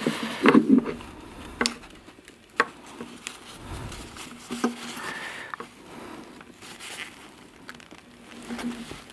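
Paper tissue rustling and crinkling as it is folded and pressed around a pen cap, with scattered light clicks and taps of the metal locking pliers and pen being handled.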